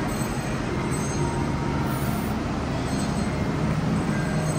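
Electric cotton candy machine running, its spinner head giving a steady whirring rumble that does not change.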